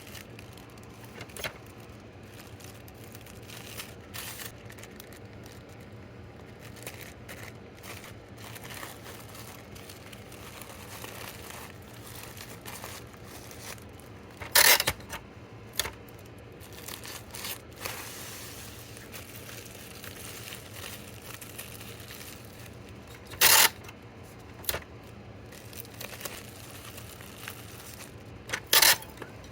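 Plastic packaging being handled while packing orders: soft crinkling and rustling throughout, with three loud, short tearing sounds about halfway, near the end, and just before the end.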